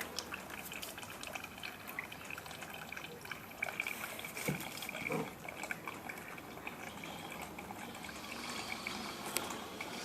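Tabletop water fountain running, water trickling and dripping steadily with many small splashes.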